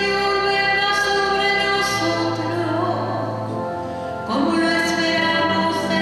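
Mixed church choir of men and women singing a slow hymn through microphones, holding long notes. A new phrase comes in louder about four seconds in.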